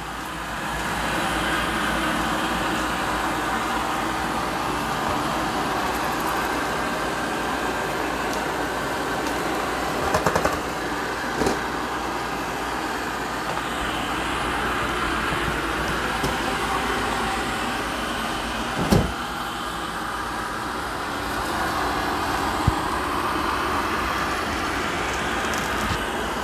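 Amarey A800 robot vacuum running, a steady whir of its suction motor and brushes as it sweeps up scattered cat litter and cat food, with a few sharp clicks along the way.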